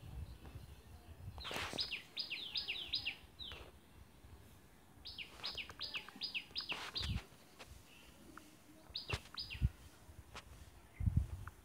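A bird chirping in three bouts of quick, falling chirps, a few a second, with a few faint knocks in between.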